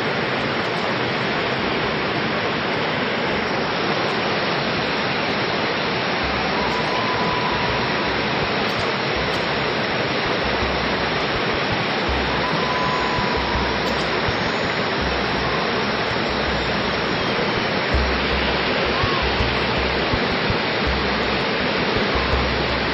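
Steady rush of water from a waterfall-fed stream, with short low thumps now and then from about six seconds in.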